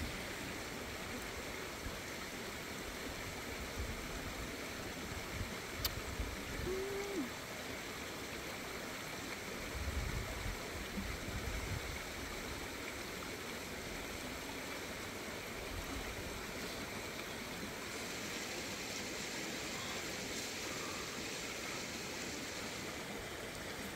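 Steady rush of a flowing stream, with a few low thumps and a click from close handling, the loudest about ten seconds in.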